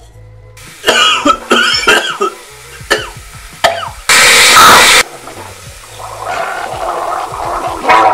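A man brushing his teeth makes loud hacking, coughing noises, then gargles loudly for about a second with his head tipped back. A low beat of background music runs underneath.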